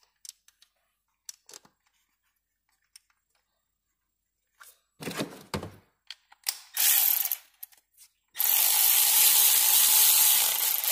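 Milwaukee cordless electric ratchet running as it drives in the ignition coil's hold-down bolt: a short burst about two-thirds of the way in, then a longer steady whirring run of about two and a half seconds near the end. Before that, light clicks and knocks as the coil is pressed into place by hand.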